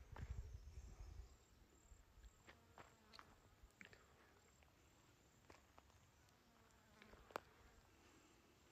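Near silence: a faint low rumble that dies away in the first second or so, then scattered faint clicks.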